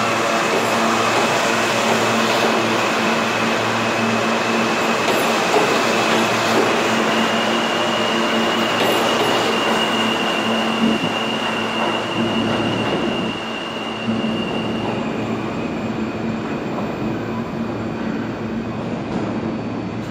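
R160 subway train accelerating out of an underground station, its wheels and motors running loudly along the rails with a steady high squeal. The squeal steps up in pitch about seven seconds in and back down near fifteen seconds. The whole sound gets quieter from about fourteen seconds in as the last car moves off.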